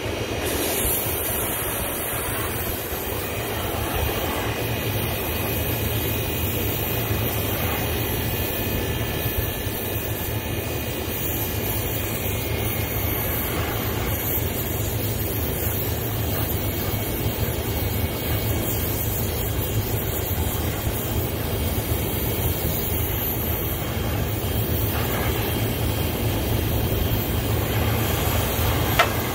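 A brazing torch flame rushing steadily while copper refrigerant pipe is brazed, over a low steady hum. There is a sharp click near the end.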